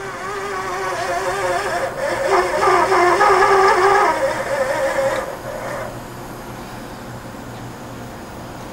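1988 Fadal 4020HT CNC vertical machining center's table being jogged: the axis drive gives a whine of several wavering tones. It grows louder from about two to four seconds in, stops about six seconds in, and leaves a steady machine hum.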